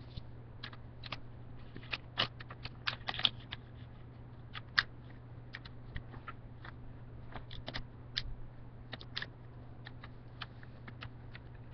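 Thin origami paper being folded and creased by hand: irregular small crackles and clicks, over a steady low hum.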